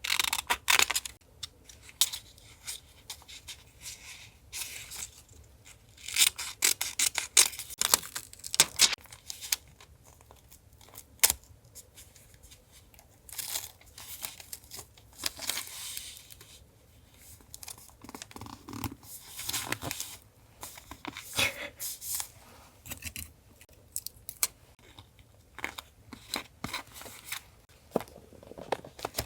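Paper being handled for collage: tearing, crinkling and scissors snipping in short bursts with brief pauses between them.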